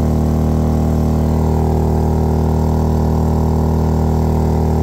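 Maxpeedingrods MXR3500 inverter generator running steadily under heavy load, with two air fryers drawing almost 3 kilowatts from it.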